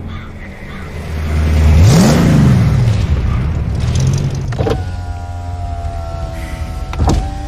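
A vehicle engine rumbling loud, sweeping up and then down in pitch as it passes, then settling into a steady, many-toned mechanical drone. Two sharp knocks come through, about two-thirds of the way in and near the end.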